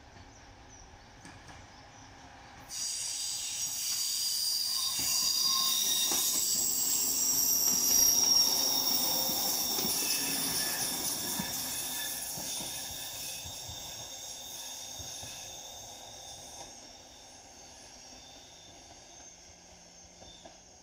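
NS Mat '64 (Plan V) electric multiple unit passing close by. The sound comes in suddenly about three seconds in, is loudest around eight seconds with several high-pitched squealing tones over the rolling noise, then fades as the train goes away along the curve.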